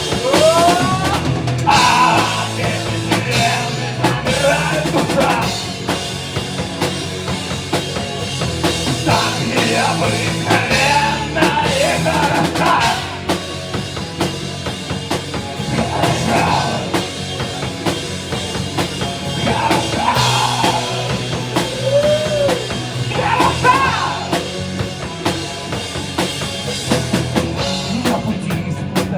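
Rock band playing live, with drum kit and bass under a melodic lead line.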